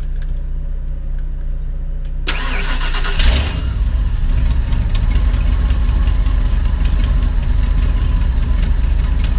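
1998 Damon Intruder motorhome's engine cranked by the starter about two seconds in, catching on the first try about a second later with no throttle and settling into a steady idle: the newly fitted fuel sending unit and pump are delivering fuel. Before the start, the motorhome's onboard generator hums steadily.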